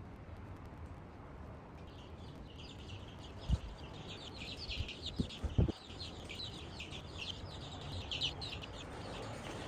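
Birds calling in a quick, continuous run of short high chirps that starts about two seconds in. Three dull thumps come in the middle.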